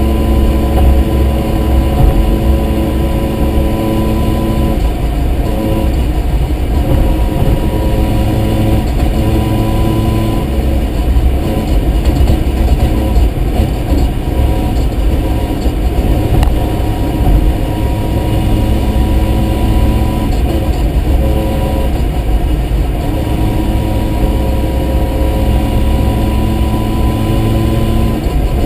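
Mazda RX-7's rotary engine and drivetrain running continuously. The engine note holds steady for several seconds at a time, then changes pitch a few times.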